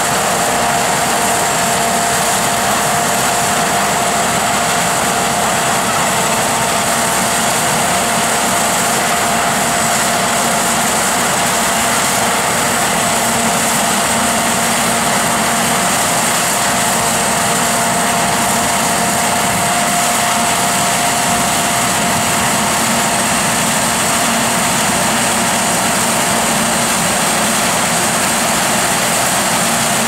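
Sakpattana KM-AMT corn combine harvester running steadily while harvesting, its engine and machinery making a loud, even noise with a steady whine on top.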